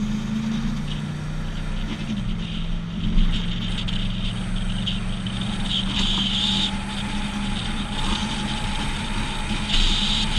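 Driving noise heard from the towed trailer: the 2012 Chevrolet Silverado 1500's 5.3 L V8 humming steadily under a constant hiss of wind and road noise. The engine's pitch steps down twice, about two seconds in and again near the eighth second.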